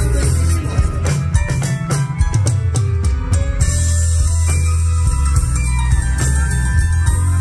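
A live rock band plays an instrumental passage with no singing: drum kit, electric guitar and keyboard. A run of quick drum hits comes between about one and three and a half seconds in.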